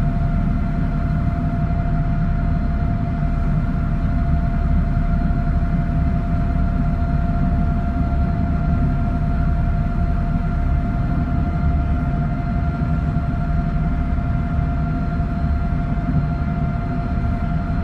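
Car ferry's engines running steadily mid-crossing: a low drone with a steady whine held on one pitch over it.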